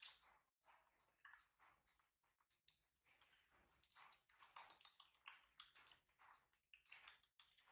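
Faint, irregular wet clicks and smacks of a baby monkey chewing and handling sliced fruit, with a sharper tick at the start and another about two and a half seconds in.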